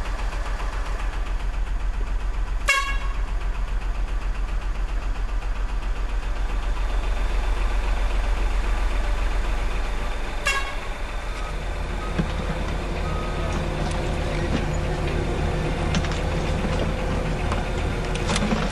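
Heavy truck engine rumbling steadily, with two short horn toots about three seconds and ten seconds in. From about twelve seconds a second, higher motor hum joins.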